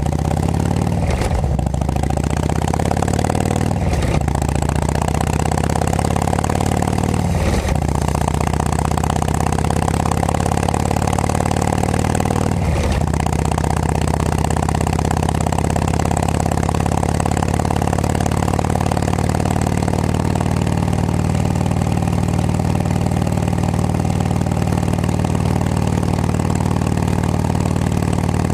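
Harley-Davidson Road King Classic's V-twin engine, fitted with Cycle Shack exhaust pipes, pulls away from a stop and accelerates up through the gears. There are four quick shifts in the first thirteen seconds or so. After that it cruises at a steady speed.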